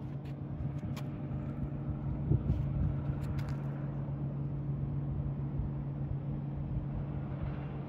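Steady low machine hum with a few light clicks and scuffs about a second in and again around three seconds in.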